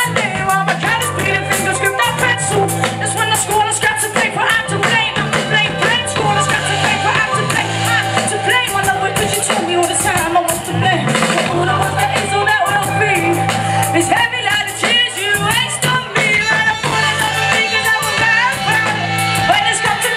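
Live band playing loudly, with a driving drum beat, a heavy sustained bass line and pitched guitar and vocal lines above.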